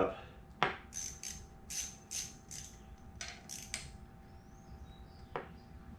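Quarter-inch drive ratchet with a 3/8 socket clicking through a series of short strokes as a clamp bolt on an adjustable track bar is loosened. There is a sharp metallic click about half a second in and another near the end.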